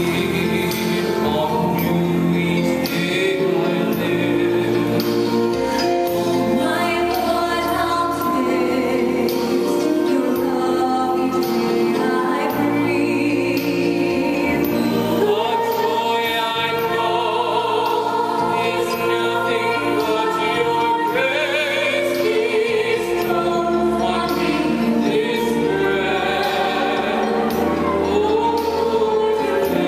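A male tenor and a female singer singing a duet into microphones, taking turns and joining together, over an instrumental accompaniment with long, held bass notes.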